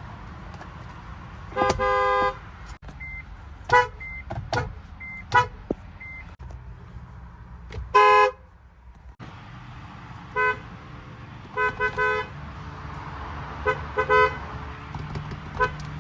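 Car horns from several cars honking in turn: mostly short toots and quick double and triple honks, with one longer honk about two seconds in. A low engine and traffic rumble runs underneath.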